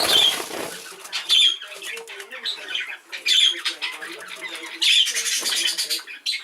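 Exhibition budgerigars chattering, with harsh squawks every second or so and a rustle of wing flapping at the start.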